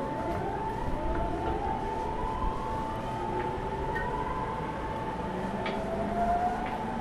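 JR East 209 series 500-subseries electric train heard from inside the car, accelerating: the inverter-driven traction motors whine in several rising tones over a steady running rumble, with the air conditioning running.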